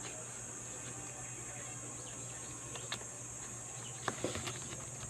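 Steady low hum with a high, even hiss, and a few sharp clicks and knocks, most of them near the end.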